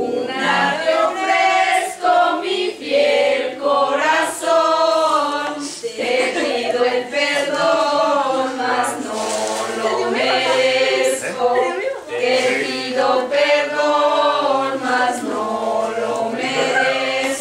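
A group of people singing together with held notes, mixed male and female voices.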